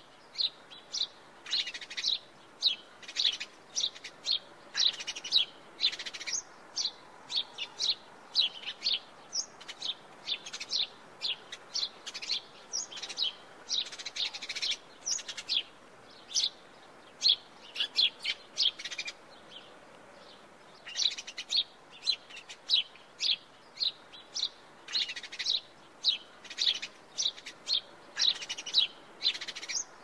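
House sparrow chirping: a steady run of short, repeated cheeps, several a second, with a brief pause about twenty seconds in.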